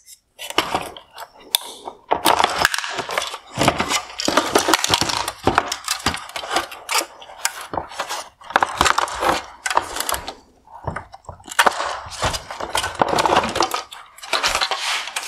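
Plastic clicking, rattling and rustling from a Mercedes-Benz GLE LED headlight's wire harness clips and projector assembly as the harness is unclipped and the parts are worked loose by hand, with a brief lull about eleven seconds in.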